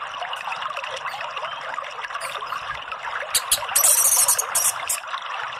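Caged orange-headed thrush singing, with loud, high, scratchy bursts of song from about three seconds in to about five, over a steady trickling background.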